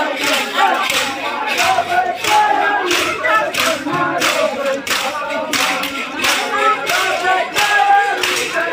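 A group of men chanting a Muharram marsiya together, over a steady beat of sharp clacks about twice a second.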